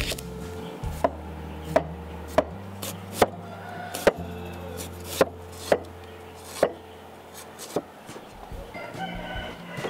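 A cleaver slicing ginger on a thick wooden log chopping board: about nine sharp knocks of the blade on the wood at an unhurried, uneven pace. Soft background music with sustained notes plays under it.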